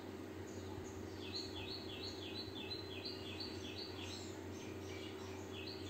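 A bird calling a rapid run of short, high chirps, about three a second, starting about a second in, over a faint steady low hum.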